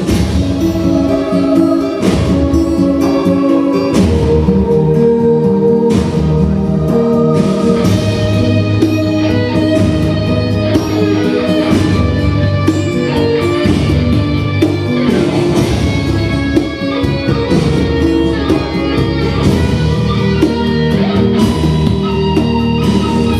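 Instrumental music with no singing: the introduction of a song, held chords and melody notes with regular struck accents.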